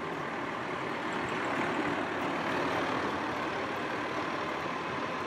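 Fire engine running steadily while it pumps water from a hydrant supply into a hoseline, with a faint steady whine.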